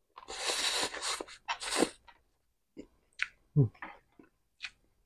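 Slurping pancit noodles in off chopsticks, a loud wet hissing for the first couple of seconds, then open-mouthed chewing with a few short wet smacks.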